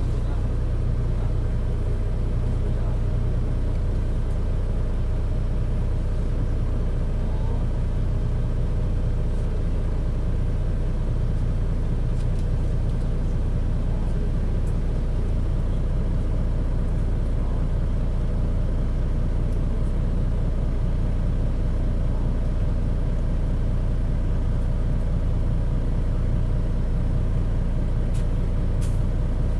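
Mitsubishi Fuso KC-MP617K city bus heard from inside while driving, its engine and drivetrain giving a steady, heavy low drone with no rise or fall. The noise is abnormal and far from this model's usual sound; the uploader takes it for the sign of some fault or trouble.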